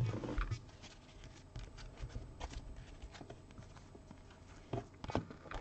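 Trading cards being handled: a sharp tap as the stack is set down on the table at the start, then faint, scattered flicks and slides as cards are moved one by one off the front of the stack, with a few more near the end.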